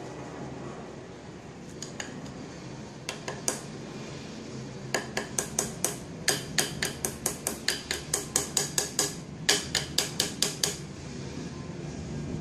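Wire balloon whisk clinking against the side of a mixing bowl as chocolate cake batter is beaten: a few scattered clicks, then about five seconds in a fast run of about four clicks a second that stops shortly before the end.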